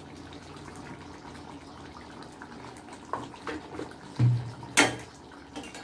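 Curry gravy simmering in a steel kadai on a gas stove: a steady bubbling hiss with a few small pops, a low thump and a sharp click about five seconds in.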